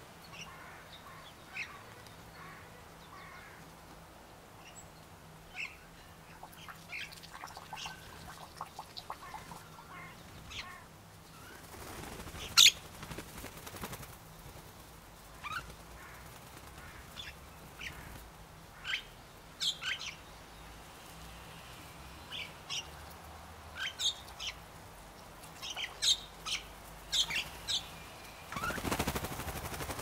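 Common mynas calling in short scattered chirps and clicks. A sharp flutter of wings comes a little before halfway, and a burst of wing flaps as the birds take off near the end.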